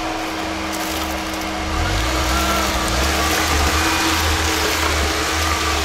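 Lada Niva's four-cylinder petrol engine pulling under load at low speed as the car crawls over boards and rubble, getting louder about two seconds in.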